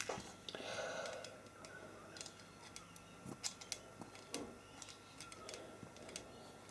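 Handling noise of small model parts: scattered light clicks and taps, with a brief rustle about half a second in, over a faint steady whine.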